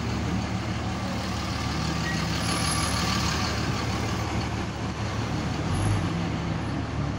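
Pickup truck's engine running steadily at low speed, heard from inside the cab, with a brief low thump about six seconds in.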